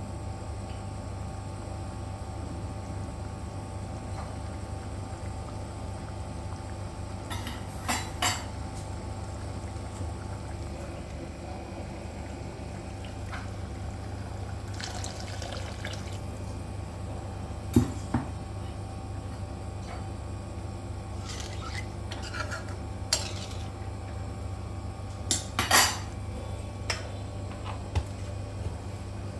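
Metal utensils clinking and scraping against a cooking pot a few times, over a steady low hum.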